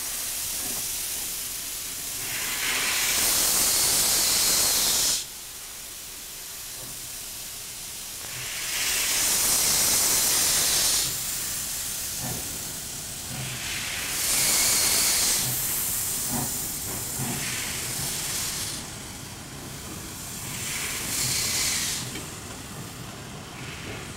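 Alco Tipo 70 steam locomotive blowing off steam at its cylinders in about four loud hissing blasts, each a second or a few seconds long, the first cut off suddenly. Between the blasts a softer hiss carries on with a few low chuffs.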